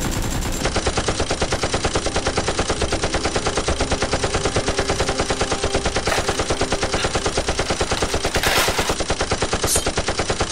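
Rapid automatic gunfire, a steady stream of shots at about ten a second.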